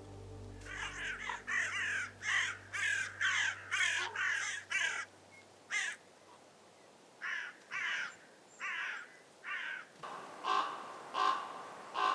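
Common ravens calling: a quick run of about ten harsh croaks, then single calls and slower groups of three or four.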